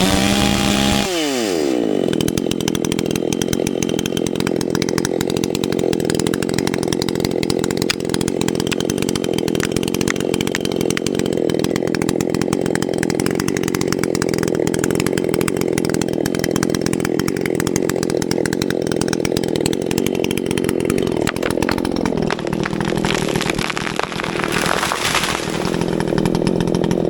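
Chainsaw cutting through a pine trunk. Its pitch drops sharply about a second in as the chain bites into the wood, then it runs steadily under load, the sound shifting somewhat near the end.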